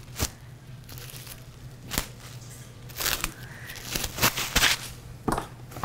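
A sheet of plastic cling wrap being handled and crumpled, giving irregular crinkling crackles throughout.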